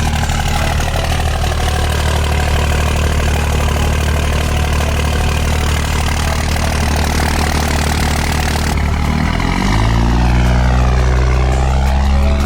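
Cummins inline-six turbo diesel in a third-generation pickup idling steadily through a newly installed aftermarket exhaust. About nine and a half seconds in, the engine note rises and holds at a higher pitch.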